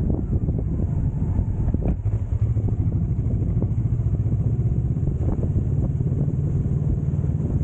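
A motorcycle being ridden, its engine rumble mixed with wind buffeting on the microphone, with a few brief knocks.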